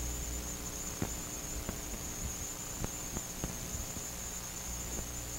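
Steady electrical mains hum with hiss and a faint high steady whine, broken by about six faint, irregularly spaced clicks.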